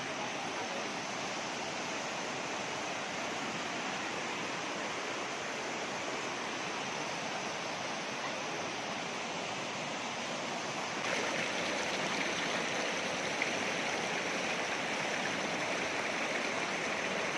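Rocky mountain stream and small cascades rushing steadily over stones. The rush grows louder and brighter about eleven seconds in.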